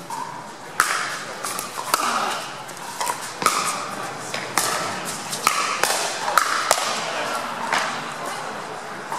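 A pickleball rally: about eight sharp pops of paddles striking the hard plastic ball, roughly one a second, each with a short echo in the hall.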